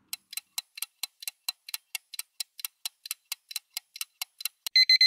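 Countdown-timer sound effect: quick, even clock ticking at about four or five ticks a second. Near the end, electronic alarm-clock beeping starts as the timer reaches zero.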